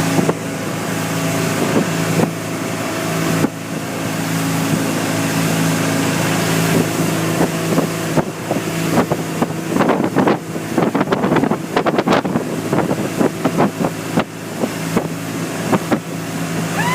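Speedboat engine running steadily at speed, with wind buffeting the microphone. A run of rapid, irregular thumps comes in the middle stretch.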